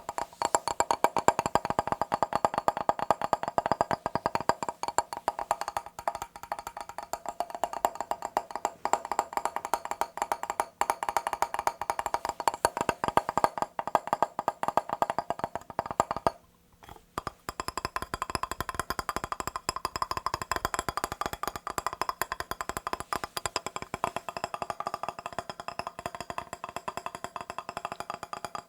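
Rapid tapping on a mirror's glass surface, a dense run of quick sharp taps with a brief pause a little over halfway through.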